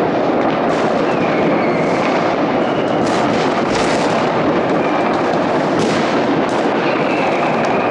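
Many fireworks going off at once across a city, heard from a distance as a continuous dense rumble and crackle of bangs. Several short whistles and a few sharper, nearer bangs stand out.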